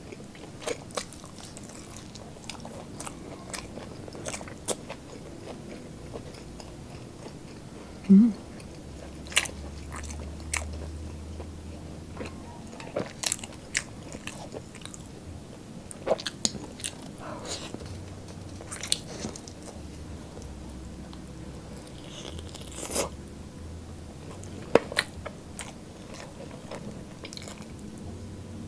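Close-up eating sounds of crispy, chili-topped fried chicken wings: scattered crunching bites and chewing, with one louder brief sound about eight seconds in.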